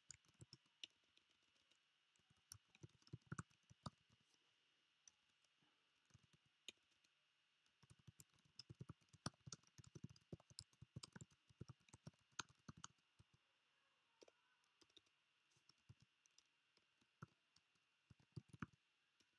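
Faint typing on a computer keyboard: quick runs of keystroke clicks with short pauses between words and phrases.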